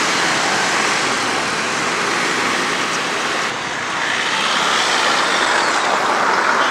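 Steady rushing road noise heard from a camera on a moving bicycle: air rushing past the microphone mixed with the traffic of motorcycles, tricycles and cars passing close by.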